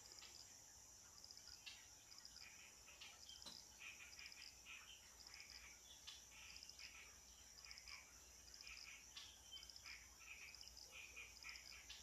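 Faint grassland ambience: a steady, high insect trill, with many short chirps scattered through it.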